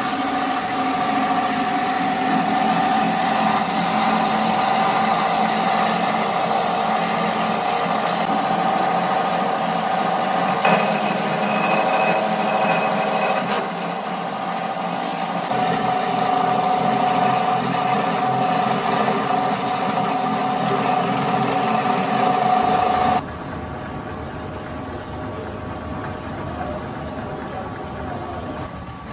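Belt-driven motorised roller machine running steadily with a constant tone as black cable is fed through its spinning roller. About three-quarters of the way through the sound cuts abruptly to the quieter, lower hum of a running plastic extruder.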